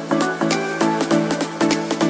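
Background music with a steady electronic dance beat.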